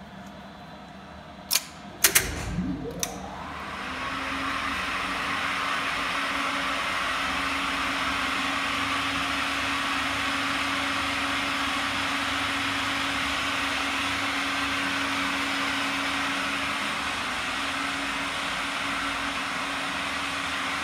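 Relay contactors in an elevator controller clack shut several times, then the geared traction machine of a 1973 Thyssen (R. Stahl) elevator starts. Its motor rises in pitch over a second or two, then runs steadily with a hum and a whir from the gear and sheave while the car travels.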